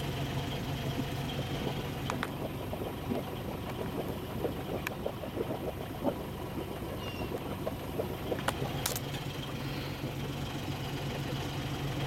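A sailboat's auxiliary engine running steadily under way, a constant low hum, with a few sharp clicks and light knocks scattered through it.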